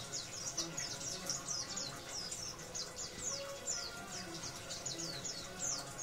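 Caged white-eye (pleci) chirping in a quick unbroken run of short, high, downward-sliding notes, about four a second.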